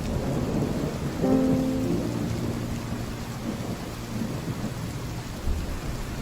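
Heavy rain on a tin roof with a steady low rumble of thunder. A few soft, sustained instrumental notes come in about a second in.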